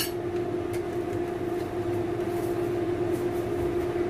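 Steady hum of a small motor running at one constant pitch, with a fainter higher tone above it. There is a light click right at the start.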